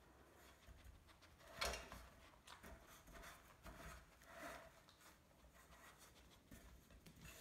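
Quiet, faint rubbing and soft knocks as a dog noses and paws at tennis balls sitting in a metal muffin tin, with one short knock about a second and a half in.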